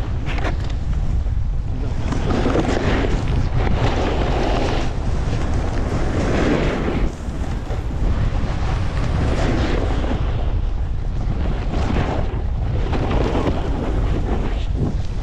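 Wind buffeting the microphone of a camera moving fast down a snow slope, a constant low rumble. Over it, a snowboard's edge scrapes across the snow in swells every second or two as it turns.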